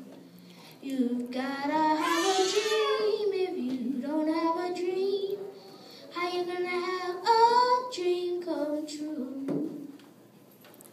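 A young girl singing solo into a microphone: two sung phrases with a short break between them, the last note dying away about a second before the end.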